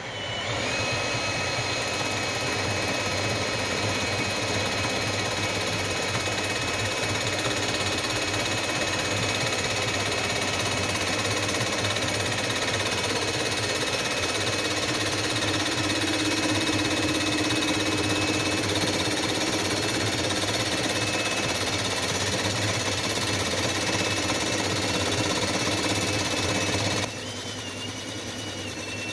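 Bridgeport-style milling machine taking a 7-thousandths facing cut across the deck of an aluminum LS cylinder head with a single-point fly cutter: a steady high whine over dense cutting noise. The noise drops sharply near the end.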